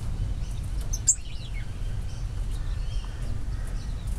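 Small aviary birds chirping in brief high calls, with a few short sweeping notes, over a steady low rumble on the microphone; a single sharp click about a second in.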